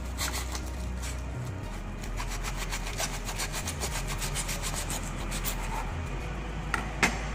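Kitchen knife sawing back and forth through aluminium foil wrapped around a rolled roulade, a run of quick scraping, crinkling strokes against the cutting board. Two sharp taps come close together near the end.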